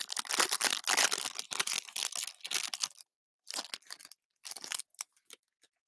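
Foil baseball card pack wrapper being torn open and crinkled by hand: a dense run of crackling for about three seconds, then a few scattered short crinkles.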